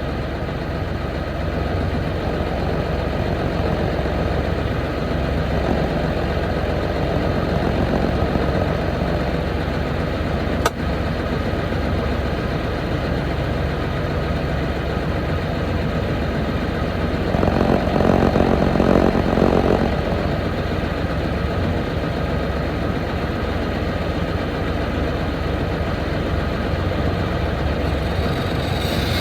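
International 9900ix semi truck's diesel engine running steadily at low speed, growing louder for a couple of seconds a little past the middle. There is a single sharp click about a third of the way in.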